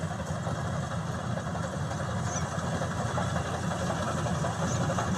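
Maxxi Bimo 102 combine harvester's engine running steadily.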